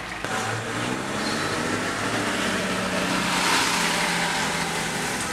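Car driving on a wet road, heard from inside the cabin: a steady low engine hum under tyre hiss. The noise swells about three and a half seconds in as another vehicle passes close alongside.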